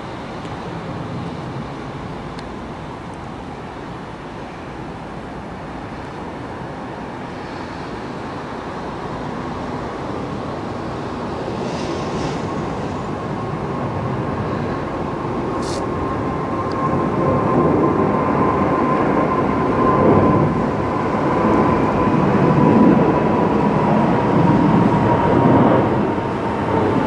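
Boeing 777-300ER's twin GE90 turbofans at take-off thrust as the airliner climbs out close overhead: a rumble that grows steadily louder, with a steady fan whine coming in about halfway through and dropping slightly in pitch near the end as it passes.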